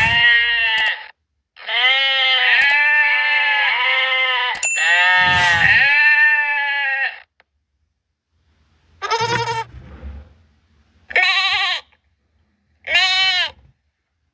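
Goats bleating with a quavering, wavering pitch: a long run of bleats through the first half, then three short bleats separated by silent gaps.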